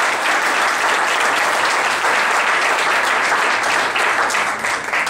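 Audience applauding, steady and loud throughout.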